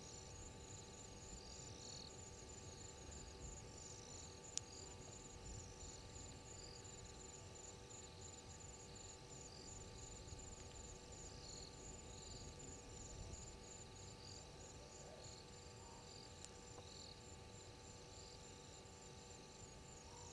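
Night insect chorus: a fast, evenly pulsed high trill with slower, irregular chirps from other insects beneath it, over a faint steady electrical hum. A single sharp click sounds about four and a half seconds in.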